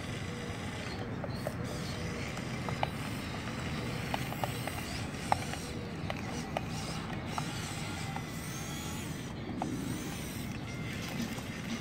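Radio-controlled model Komatsu PC1250 excavator working its boom and bucket: its small electric drive motors and gearboxes run with a steady whir, broken by scattered sharp clicks.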